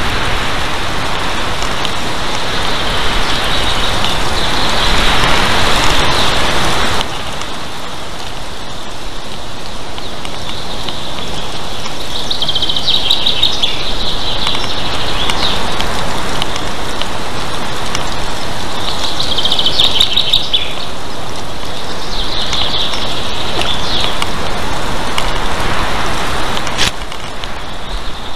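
High chirping bird calls in several short bouts over a steady rushing outdoor noise, which drops abruptly about seven seconds in and again near the end.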